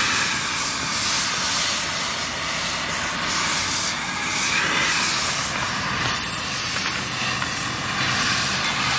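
Oxy-fuel gas torch flame hissing steadily as it heats a stack of steel knife blanks ahead of oil quenching.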